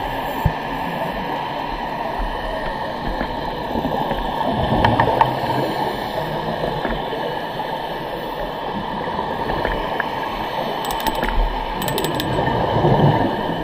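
Underwater sound through a camera's housing: a steady muffled rush of water noise, with scuba divers' regulator bubbles swelling louder about five seconds in and again near the end.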